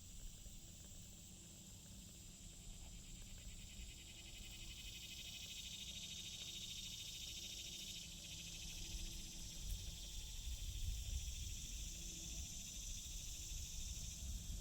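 Night insect chorus, a continuous high-pitched trilling of many insects that swells in the middle, with a low rumble coming in during the second half.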